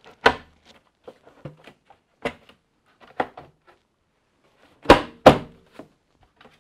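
Hard plastic parts of a Hasbro Vintage Collection Boba Fett's Throne Room playset being fitted and snapped into place: a series of sharp clicks and knocks, with two loud snaps in quick succession about five seconds in.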